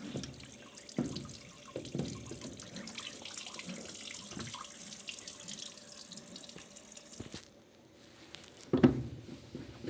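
Water running steadily, with a few knocks, stopping about seven and a half seconds in; a louder knock follows near the end.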